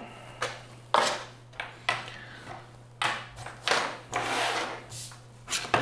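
Small items being handled on a wooden desk: several sharp knocks and clicks, then longer sliding and rubbing sounds in the second half, over a faint steady low hum.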